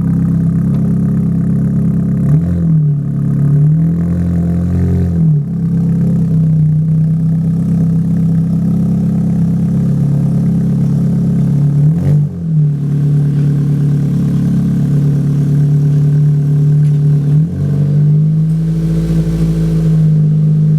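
Car engine running steadily, with a few short revs that rise and fall in pitch.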